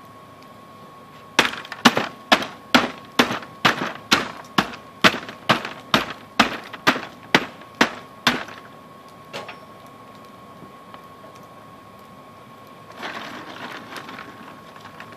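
About sixteen sharp, hard blows in quick succession, just over two a second, for some seven seconds: a hand tool breaking up lumps of coal to feed a forge. Under it runs a steady thin whine from the hairdryer blowing air into the forge, and near the end there is a short rattling rustle.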